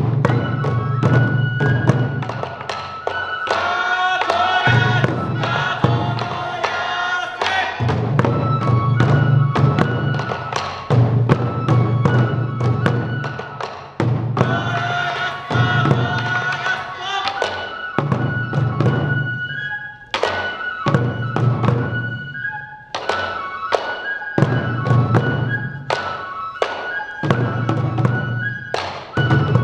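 Sansa odori music: many taiko drums beating in a steady rhythm under a bamboo flute holding high notes. A group of voices chants in unison twice, in the first half.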